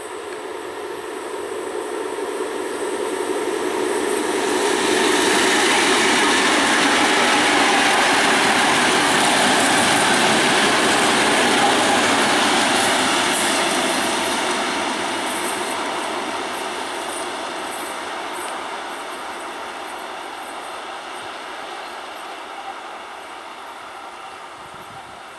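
A coupled set of 2TE116 twin-section diesel locomotives, with 16-cylinder 5D49 diesel engines, passing without a train behind them: engine and wheel-on-rail noise swells as they approach and is loudest from about 5 to 12 seconds in while they pass, then fades slowly as they move away.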